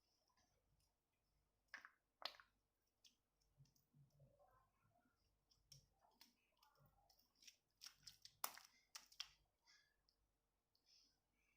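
Faint, irregular sticky clicks and pops of slime being worked by hand, the loudest a little past the middle.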